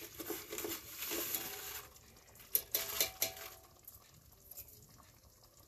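Ghugni heating in an aluminium kadai on a gas burner, with a faint sizzling hiss for the first couple of seconds, then a few light metal clinks of a spatula against the pan around the middle.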